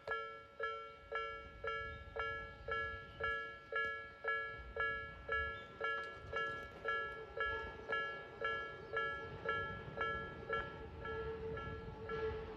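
Railway level-crossing warning bell ringing in an even repeating strike, about two strikes a second. Near the end the strikes blur into a more continuous ringing. It signals that a train is approaching the crossing.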